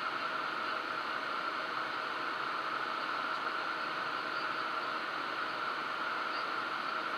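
Steady in-flight cockpit noise of a Cessna Citation twin-turbofan business jet: an even rush of airflow and engine noise, with a faint steady hum underneath.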